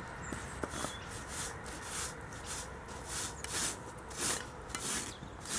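Stiff-bristled broom sweeping sand and grit off stone path slabs, in short scratchy strokes about two a second.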